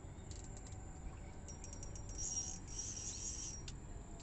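High-pitched insect chirring: a run of quick clicks that runs together into a buzzing trill, in two spells about halfway through, over a low background rumble.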